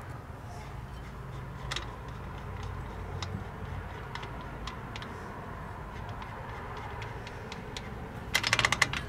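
Small metallic clicks from drum-brake hardware being worked by hand, then a rapid run of loud clicking near the end as the star-wheel adjuster is spun to shrink it down.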